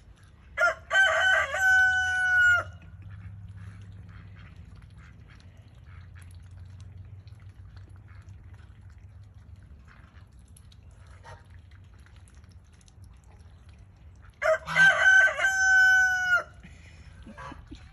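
Rooster crowing twice, about twelve seconds apart; each crow lasts about two seconds and ends in a long held note.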